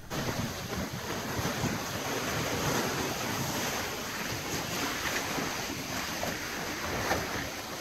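Steady rush of wind and sea around a sailing catamaran under sail, with wind buffeting the microphone.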